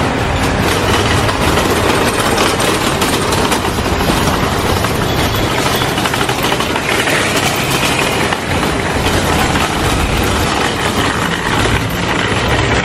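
Loud, continuous rattling and rumbling of a loaded shopping cart's wheels rolling over pavement.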